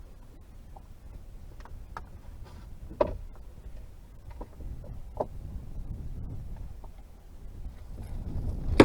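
Scattered clicks and knocks of gear being handled in a small fishing boat, the loudest a sharp knock near the end, over a low rumble of wind and water.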